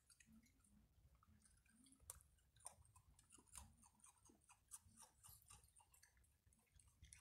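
Raccoons chewing and crunching food, faint, with many irregular crisp clicks and crackles that come thicker after about two seconds.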